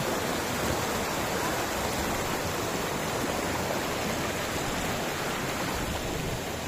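Mountain stream rushing and splashing over boulders in small rapids, a steady rush of water that eases slightly near the end.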